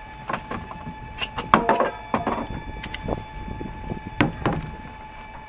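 Irregular knocks, bumps and clatter on the fibreglass deck of a small sailboat as a boat fender and its line are handled on the foredeck, with the loudest knocks about a second and a half in and again about four seconds in.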